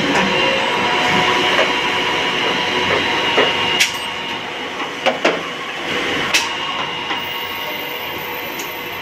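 Special-purpose drilling machine running: a steady mechanical hum with several steady whining tones, and a few sharp clicks near the middle.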